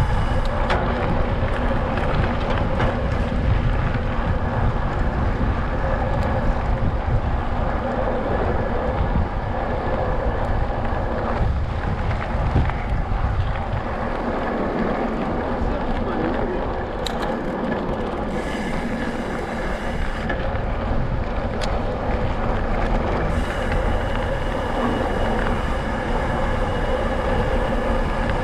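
Mountain bike rolling over a rough, cracked country lane: steady tyre rumble and rattle, carried strongly through the handlebar-mounted camera, with some wind on the microphone.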